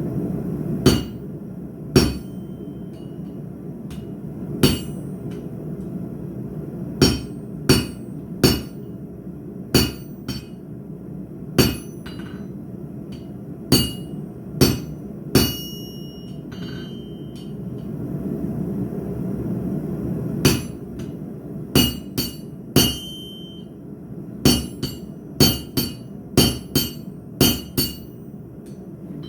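Hammer striking steel on an anvil in irregular blows, some in quick clusters, several leaving a short high ring, over a steady low rumble.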